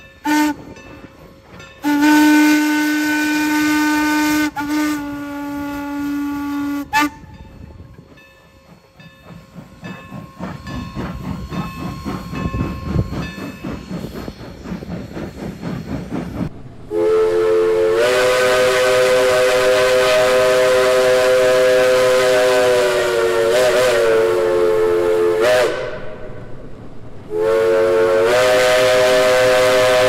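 Steam locomotive whistle blowing a short toot, then a longer steady blast. The engine's exhaust chuffs in a rhythm that grows louder. Then Norfolk and Western 475, a 4-8-0 steam locomotive, sounds a long chime whistle blast of several notes, breaks off briefly, and blows again near the end.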